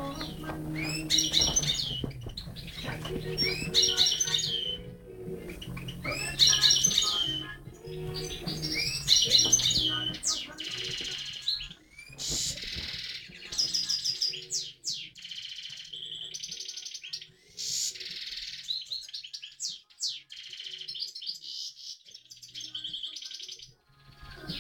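A European goldfinch singing: rapid twittering and trilled phrases, at first in bursts about every two and a half seconds, then running on more continuously. Low backing music plays under the first half and stops about halfway through.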